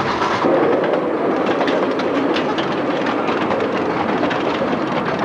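Miniature passenger train running along its narrow-gauge track: a steady rumble and rattle from the riding cars, with many irregular clicks from the wheels on the rails.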